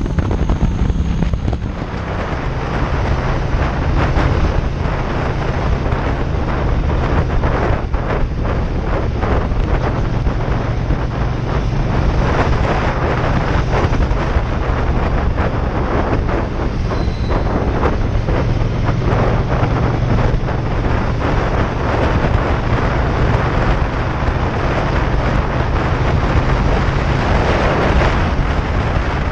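Triumph Bonneville T120 parallel-twin engine running steadily while the bike is ridden, under heavy wind rush over the microphone. The engine note drops slightly about two seconds in, then holds.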